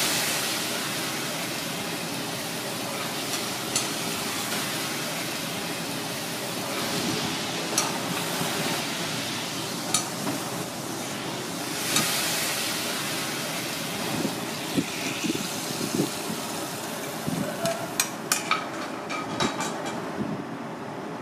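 Sauce sizzling in a wok over a gas burner, a steady hiss that eases in the first couple of seconds, with sharp clinks of metal ladle and utensils against the wok and plate, several in quick succession near the end.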